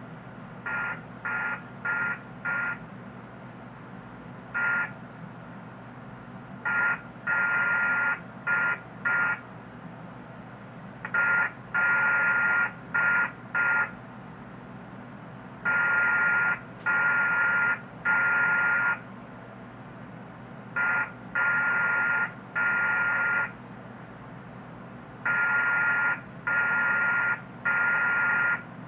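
Slow Morse code received on a software-defined radio: a buzzy, hissy tone keyed on and off in dots and dashes, spelling out "HELLO WO". The signal is radio-frequency interference leaked by an HDMI computer monitor as its screen is flashed white in timed pulses.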